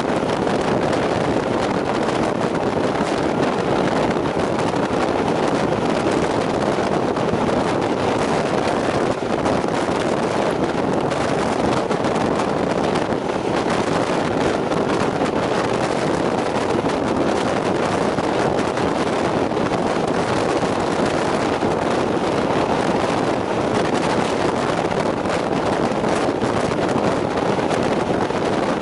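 Steam-hauled passenger train running at speed, heard from a camcorder held out of a coach's droplight window: a steady rush of wind on the microphone over the train's running noise.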